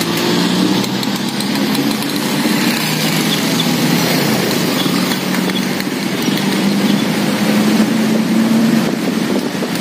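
Street traffic close by: motorcycle and car engines running and passing, with a steady engine hum that rises a little in pitch near the end.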